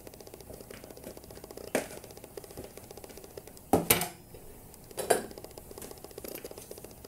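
Kitchen utensils knocking and clinking as a plastic mixing bowl and spatula are handled against a metal baking pan: four sharp knocks, two of them close together about four seconds in.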